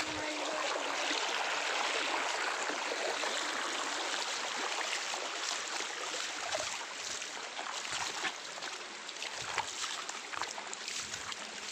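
Water rushing steadily at a waterfall, an even hiss of flowing water, with a few faint clicks in the second half.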